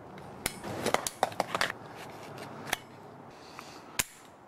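A handgun firing a string of sharp cracks: a rapid run of shots in the first two seconds, then single shots near three seconds and near four seconds.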